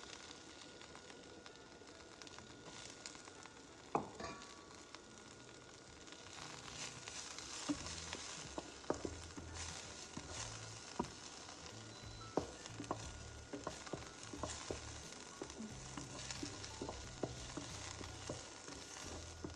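Onions sizzling in hot oil in a pan, with a utensil clicking and scraping against the pan as they are stirred, busier from about six seconds in.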